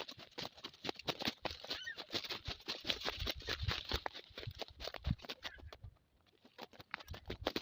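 Footsteps and rustling of people walking outdoors: a quick, irregular run of crunching steps, with low rumbles of wind or handling on the microphone and a short lull about six seconds in.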